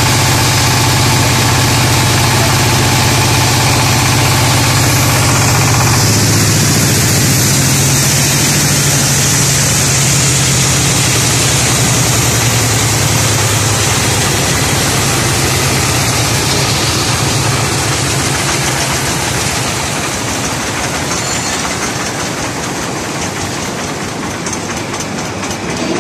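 Diesel engine running a wood-crushing sawdust machine: a steady engine drone with the noisy rush of the crusher grinding wood into sawdust. The engine note changes about six seconds in, and the sound eases off over the last several seconds.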